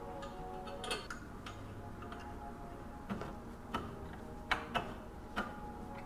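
Irregular sharp metallic clicks and ticks, about six of them, as an Allen wrench is fitted into and turned in a bolt fastening the metal wire mattress support to the wooden crib end.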